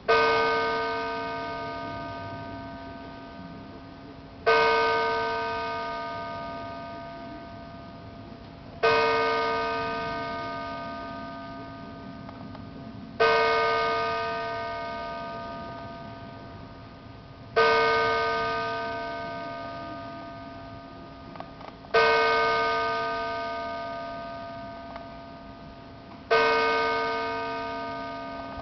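Church bell striking the hour for eight o'clock: seven slow strokes about four and a half seconds apart. Each stroke rings out and slowly dies away, with a low hum tone carrying on between strokes.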